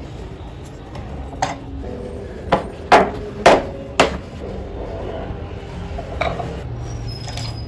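Carved wooden wheels set down one after another on a table: four sharp wooden knocks about half a second apart, a few seconds in. Lighter clicks and taps of wooden parts being handled come before and after.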